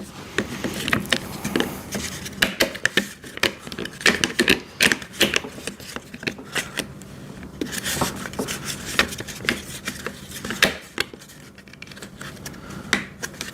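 Irregular clicks, taps and scraping of plastic and metal parts being handled during assembly of an electric wood chipper, with snap-on hubcap covers being pressed onto its wheels.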